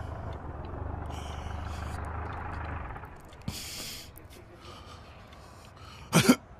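A low steady hum that stops about three seconds in, a short breathy hiss, then a man's brief throaty vocal sound, like a throat clearing, near the end.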